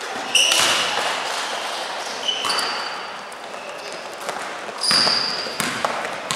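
Basketball sneakers squeaking on the gym court in short high chirps several times, with thuds of footfalls and the ball bouncing as players run the floor.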